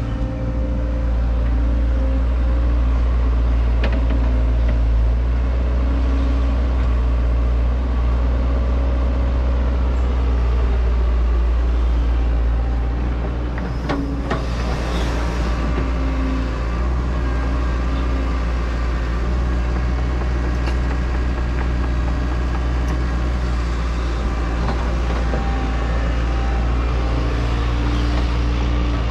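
Excavator's diesel engine running steadily under working load, with a few sharp knocks of the bucket and steel parts about halfway through.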